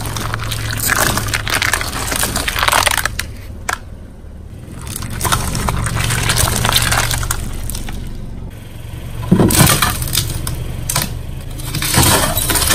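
A car tyre rolling over and crushing brittle objects, which crackle and snap in bursts, loudest about nine and a half seconds in, over the car's steady low engine hum.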